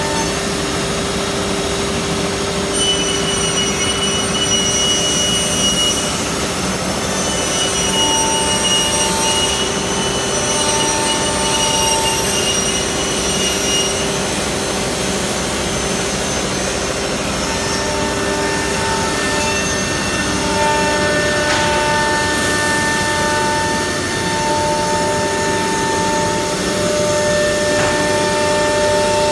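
Four-spindle CNC wood router running and cutting grooves into a wood panel: a steady loud cutting noise with the spindle's whining tones, some of which fade in and out as the cutter travels.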